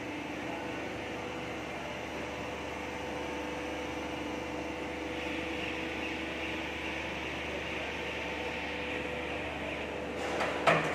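Plastic injection-moulding machines running in a crate factory: a steady machine hum with a few constant tones, a hissing band coming in about halfway through. A couple of sharp knocks sound close together near the end.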